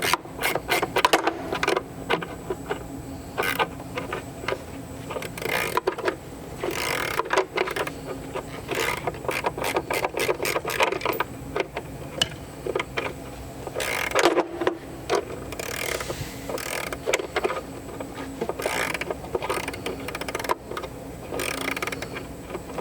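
Angle grinder cutting through seized steel nuts and bolts on a boat's steering hub, its motor running steadily while the cut comes and goes in uneven bursts as the disc bites.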